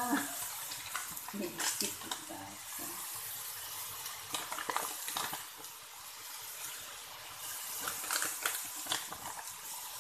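Petola (ridged luffa) pieces sizzling in a steel wok with a steady hiss. A metal spatula scrapes and clicks against the wok several times as the vegetables are turned.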